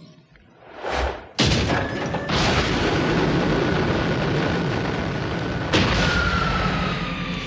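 Cartoon blast sound effect: a rising whoosh about a second in, then a sudden loud boom that carries on as a steady rumble. A second hit comes near the end, over a faint tone that falls slowly.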